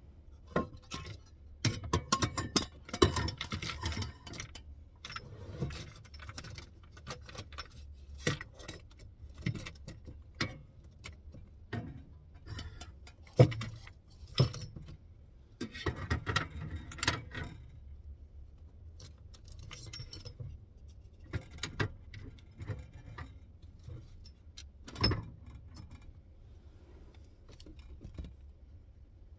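Bottles, containers and a mesh tote being handled and set down on a wooden table and slatted shelf rack: scattered clicks, light knocks and rustling, with two sharper knocks about a third of the way in and near the end.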